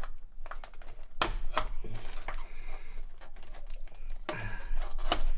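Irregular sharp clicks and scrapes from hand-working a Commodore 64 mainboard, prising at the cover over the VIC-II chip. The loudest clatter comes about a second in and again near the end.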